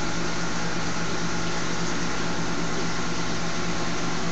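Saltwater aquarium pumps and water circulation running: a steady hum with an even rushing hiss.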